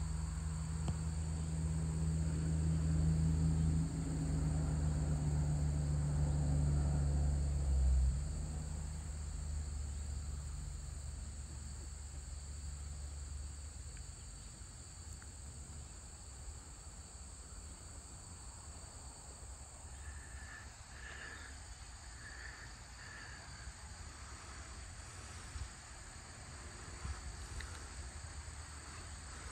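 Steady high-pitched chorus of crickets and other insects. A low rumble is loudest over the first eight seconds and fades out soon after. A few short repeated notes come about two-thirds of the way through.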